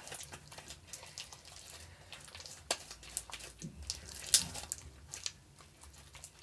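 Slime being kneaded and pulled, a scatter of soft, wet, sticky clicks and squelches, with a couple of sharper snaps about a third and two thirds of the way through.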